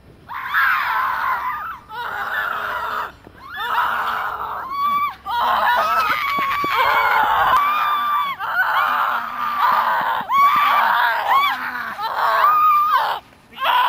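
People screaming loudly in long, high-pitched screams, broken by short breaks every second or two.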